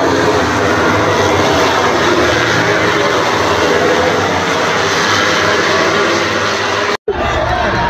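A pack of MotoGP racing motorcycles passing through a corner, their four-cylinder engines running at high revs and blending into one loud, steady sound. It breaks off for an instant near the end.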